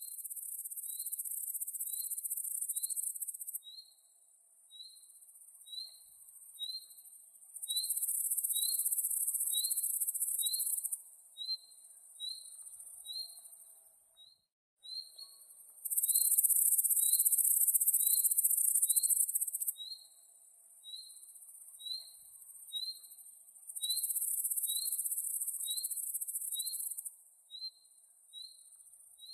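Night insect chorus: a cricket chirping steadily at a high pitch, about three chirps every two seconds, while a louder, even higher-pitched insect trill comes and goes in spells of three to four seconds, four times. Everything cuts out for a moment about halfway through.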